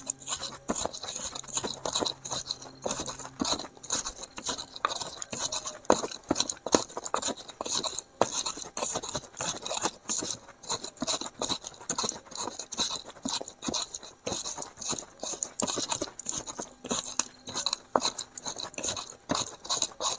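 Garlic, turmeric and coriander being crushed and ground into a spice paste in a mortar: irregular crunching and scraping strokes, several a second.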